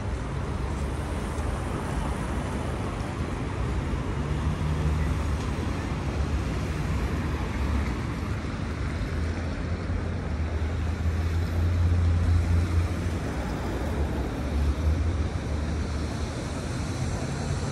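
City road traffic: cars driving along a wide street, a steady noisy rumble that swells and eases as vehicles pass, loudest a little past the middle.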